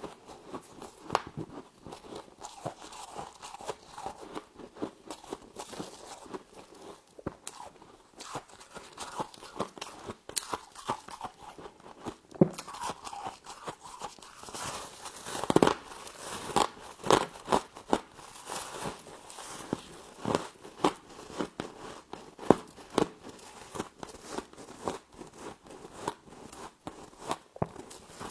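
Close-up biting and chewing of icy frost: irregular sharp crunches, denser and louder around the middle.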